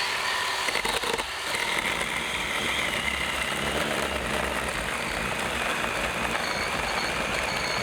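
Ryobi 18-volt cordless chainsaw running with a steady high whine while cutting through a tree limb.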